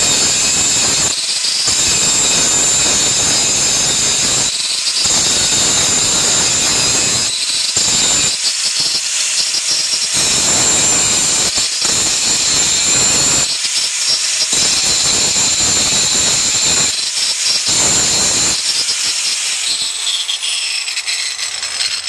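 Handheld grinder grinding on steel leaf-spring shackle hardware, in repeated passes with short breaks between them, to take off more metal so the new shackle fits. It spins down near the end.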